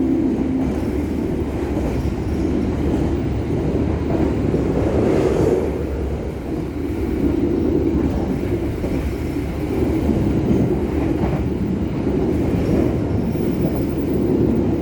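Passenger train running on the rails, heard from inside a coach: a steady rumble of wheels and carriage.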